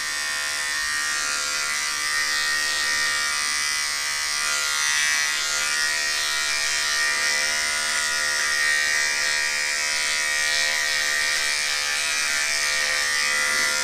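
Electric beard trimmer buzzing steadily as it is run over beard stubble on the cheek and jaw.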